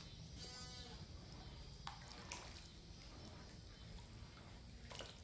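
Catfish and a turtle splashing at the water's surface as they snatch bread from a hand held just above it, with a few sharp splashes about two seconds in and again near the end. A short pitched call sounds at the very start.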